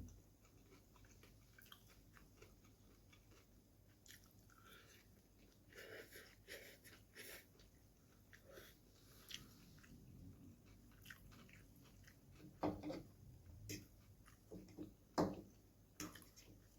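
Faint close-up chewing of chicken noodles: soft, irregular wet mouth clicks, with a couple of louder mouth sounds about three-quarters of the way through.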